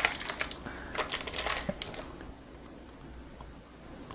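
Clusters of sharp plastic clicks and light clatter from a low-profile mechanical keyboard being handled, strongest in the first two seconds, then only faint sound.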